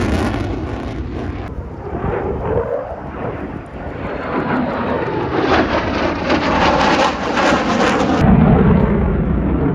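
Jet noise from an F-35 Lightning II's single turbofan engine during a low display pass: a loud, rough rumble. About eight seconds in the hiss at the top drops away and the deep rumble grows louder.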